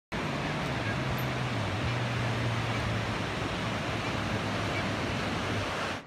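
Ocean surf breaking and washing up the beach as a loud, steady rush, with wind on the microphone adding a low rumble.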